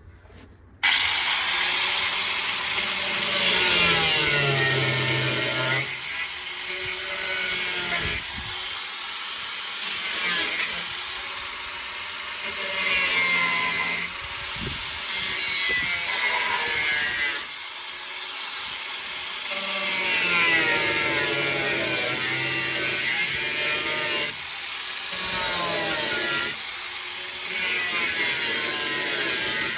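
Angle grinder with a cutting disc cutting through the Beetle's sheet-steel body panel, starting up about a second in and running loud and steady. Its pitch wavers as the disc bites and eases, with several short lulls.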